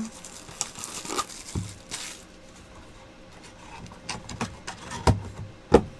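Cardboard trading-card box being handled and opened on a tabletop playmat: scattered light taps, scrapes and cardboard rustles, with a sharper knock near the end as the box is set down.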